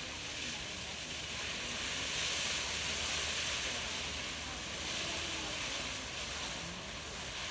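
Firework fountain burning with a steady hissing spray, swelling louder about two seconds in and again around five seconds.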